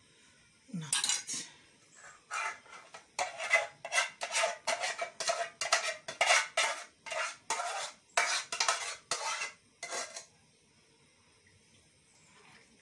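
A utensil scraping and knocking inside an aluminium saucepan, about two strokes a second, as the pan is scraped out into a larger metal pot; the scraping stops about ten seconds in.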